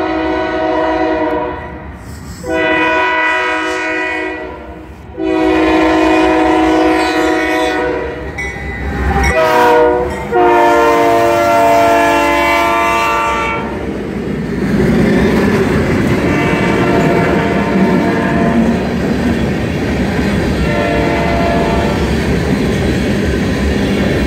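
Union Pacific freight locomotive air horn blowing a chord in long blasts: long, long, short, long, the grade-crossing signal, its pitch dropping as the lead locomotive passes close by. The horn stops about 14 seconds in, and the passing diesel locomotives and tank cars rumble and rattle steadily on the rails.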